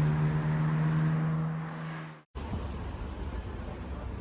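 A vehicle running with a steady, even-pitched drone, cut off suddenly a little over two seconds in, then a steady low rumble.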